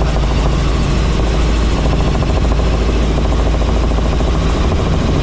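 Helicopter running steadily and loudly: a continuous rotor and engine din, heaviest in the low end, with a fast, even pulsing of the blades.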